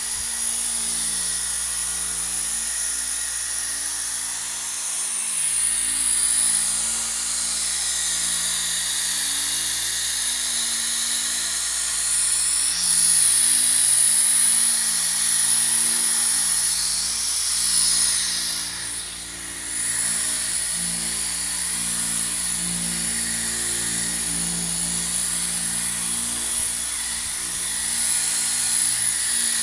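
Electric rotary polisher running steadily with a high-pitched whine, buffing a freshly painted car bumper to take out the sanding scratches; it dips briefly about two-thirds of the way through.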